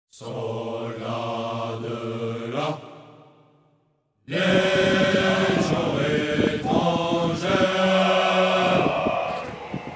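A group of voices singing a slow chant. One phrase fades out, there is a second of silence, then the singing starts again and holds long notes. Near the end it gives way to a rougher, noisy sound.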